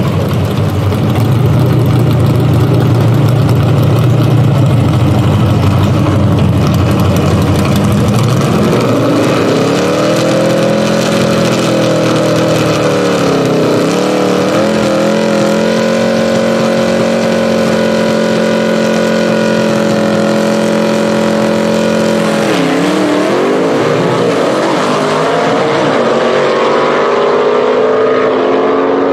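Gasser drag race car engines at high revs. Tyre-spin noise from the burnout fills the first several seconds. The engines then settle into revving, are held at a steady high pitch while staging, dip sharply once and climb in pitch near the end as the cars launch and run down the strip.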